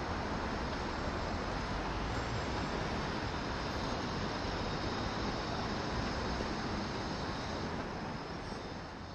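City street ambience: a steady hum of passing traffic, fading out near the end.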